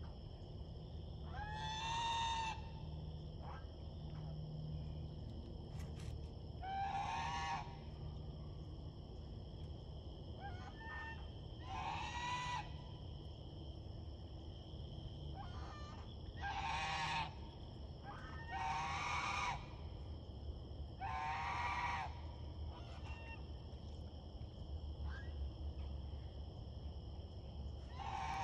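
Chinese goose honking: about seven loud, drawn-out honks, each close to a second long, coming a few seconds apart.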